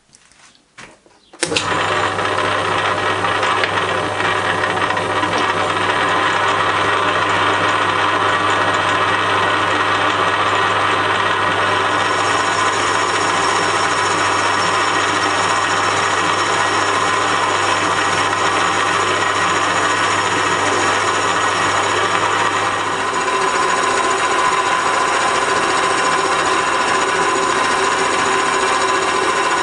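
A metalworking machine tool starts abruptly about a second and a half in and runs steadily, machining a cylinder casting, with a slight change in tone near the end.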